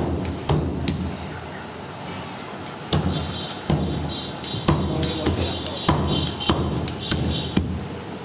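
A heavy butcher's cleaver chopping chicken on a wooden block: sharp, irregular chops about one every half-second to second, with a break of about two seconds after the first three.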